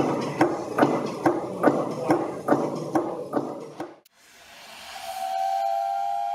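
A stationary engine running with a regular knock, about two and a half beats a second, that cuts off suddenly about four seconds in. Then a hiss swells into a steam whistle blowing one steady note.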